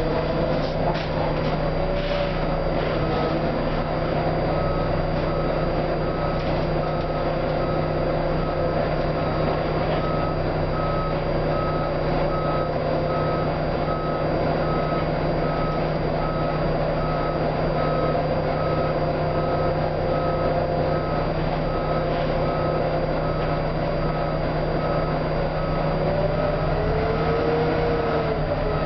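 Volvo B9TL double-decker bus running, heard from inside the lower deck: a steady low engine drone with a whine that wavers in pitch. From about two seconds in, a short electronic beep repeats evenly, about one and a half times a second.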